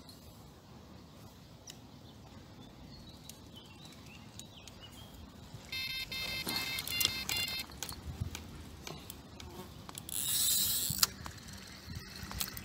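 Electronic bite alarm on a carp rod beeping rapidly for about two seconds as a carp takes the bait and pulls line. A second-long rushing hiss follows a few seconds later as the rod is lifted from the pod.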